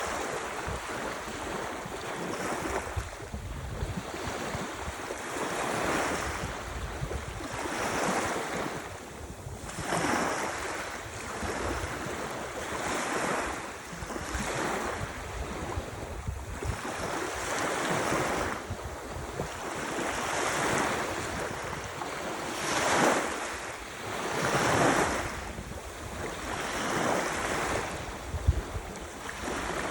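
Ocean surf: waves breaking and washing in, swelling and falling back every two to three seconds, with a low wind rumble on the microphone.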